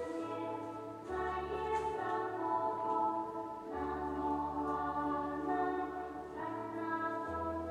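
Background music: slow, sustained chords over a held bass note that changes every second or two.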